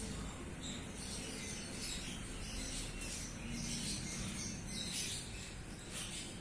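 Birds chirping in short, repeated high calls over a steady low outdoor rumble.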